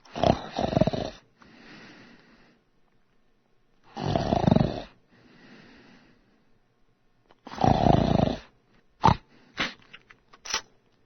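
Snoring sound effect: three loud snores roughly four seconds apart, the first two each followed by a softer out-breath, then a few short, sharp sounds near the end.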